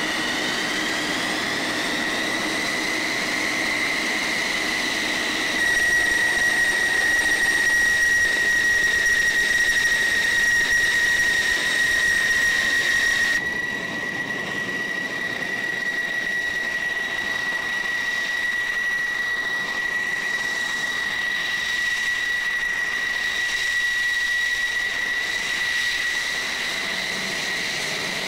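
F-16 fighter's jet engine running at ground idle with a steady high-pitched whine. The whine rises slightly over the first few seconds and is louder for several seconds before dropping back.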